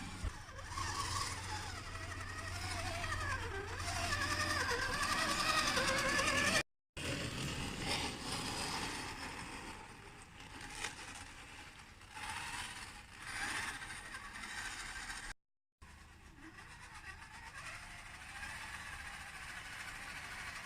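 Axial SCX10 II radio-control crawler's electric motor and geartrain whining, the pitch rising and falling with the throttle. The sound comes in three stretches, cut off abruptly twice.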